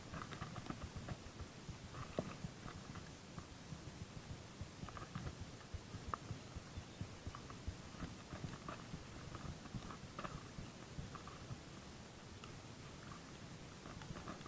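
Faint handling noise: scattered soft clicks and rubbing as hands work fishing line on a plastic-bottle handline spool, over a low rumble.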